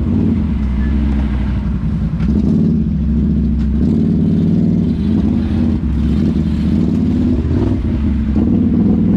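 ATV engine running steadily under way, its pitch dipping and rising slightly a few times as the throttle changes.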